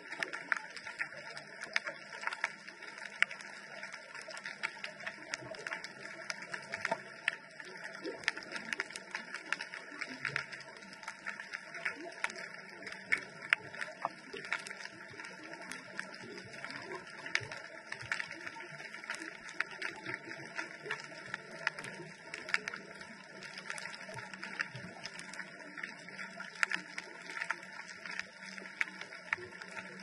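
Underwater ambience heard through a GoPro camera's waterproof housing: a dense, irregular crackle of sharp clicks.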